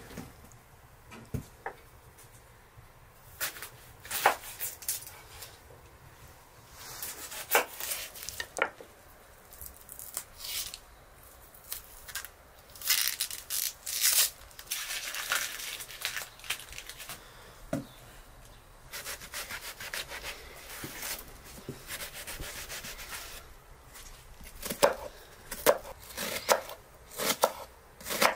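Kitchen knife cutting and peeling onions on a wooden cutting board: scraping and rubbing with scattered knocks of the blade on the wood, then quicker chopping strokes near the end.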